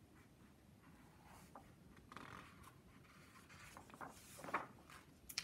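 A large picture book's paper pages being turned and handled: soft rustling and rubbing about two seconds in and again around four seconds in, with a short sharp tick near the end.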